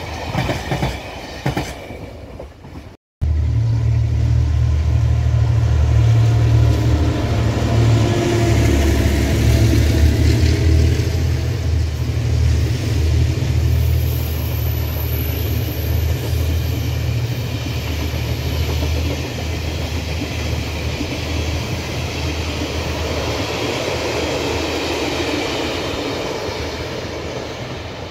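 Taiwan Railway R-class diesel-electric locomotives running past with a steady, deep engine drone, hauling a train of DR3000 and DR2800 diesel railcars whose wheels roll and clack over the rails; the sound slowly fades near the end. A brief cut about three seconds in separates it from the end of another passing train.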